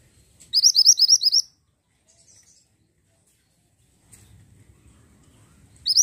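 Minivet (mantenan) calling: a fast run of about nine sharp rising chirps in a second, about half a second in, and a second run starting right at the end.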